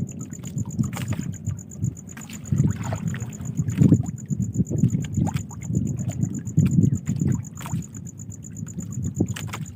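Water slapping and lapping against the hull of a small boat in irregular low surges, with a few light knocks and a faint steady high whine.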